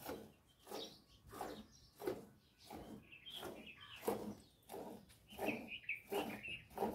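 A cow being milked by hand into a steel bucket already partly full of milk: regular squirts of milk hitting the pail, about three every two seconds. Birds chirp over it about halfway through and again near the end.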